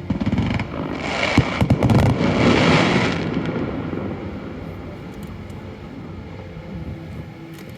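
Fireworks going off: a quick cluster of bangs and crackling about one to three seconds in, then a rumbling echo that fades away.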